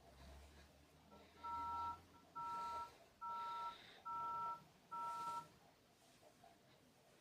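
Phone giving five identical two-tone beeps, like keypad dialling tones. Each beep lasts about half a second and they come a little under a second apart, after one short faint blip.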